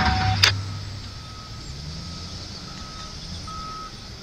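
A vehicle's backup alarm beeping, one steady high tone on and off about once a second, over a low engine rumble. A sharp click comes just after the start.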